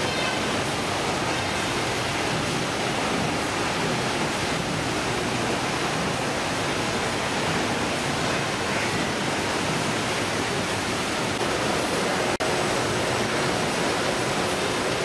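Steady, loud din of a fish-processing line on a ship: conveyors and machinery running, with spraying and running water, one even wash of noise without a clear rhythm. It breaks off for an instant about twelve seconds in.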